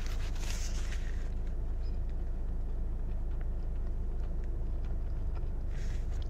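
Steady low rumble of a car idling, heard inside the cabin. A paper napkin rustles at the start, a short crisp rustle comes near the end, and faint chewing ticks fall between.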